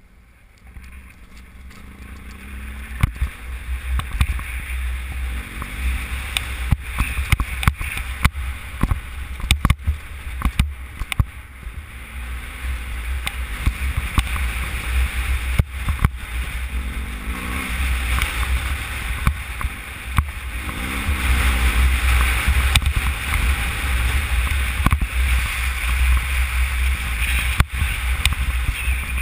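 BMW F800GS parallel-twin engine running and revving as the motorcycle rides a rough, rocky dirt track, under a heavy low rumble of wind on the microphone. Frequent sharp knocks run through it as the bike jolts over stones, and it grows louder over the first few seconds as the bike picks up speed.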